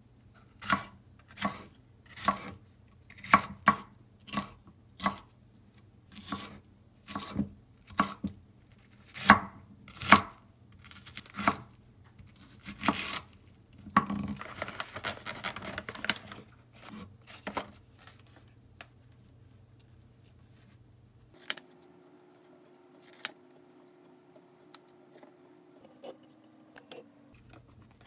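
Chef's knife slicing bell pepper and onion on a wooden cutting board: unhurried knocks of the blade on the board, roughly one a second, with a short stretch of quicker cutting partway through. The chopping stops after about 18 seconds, leaving a few faint clicks of a plastic food container.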